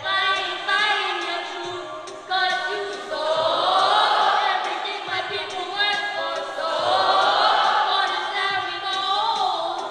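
Children's choir singing together in long, held phrases that swell loudest about a third of the way in and again near the end.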